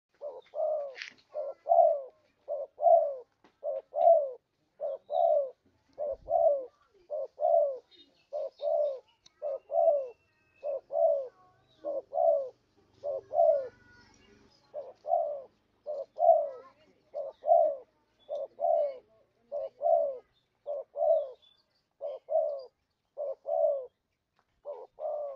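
Spotted dove (terkukur) cooing as a lure call: a long, even series of short, mellow coos, close to two a second with brief pauses between groups. Faint chirps of other small birds sound higher up.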